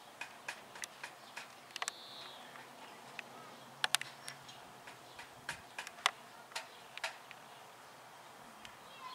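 A child tapping an aluminium stepladder with a small wooden block in play 'repairs': light, irregular taps and clicks, a couple of them sharper about four and six seconds in.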